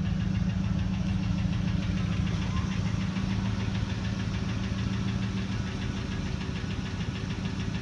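Ford F-150 pickup truck's engine idling steadily, a low even hum with a fast regular ticking over it.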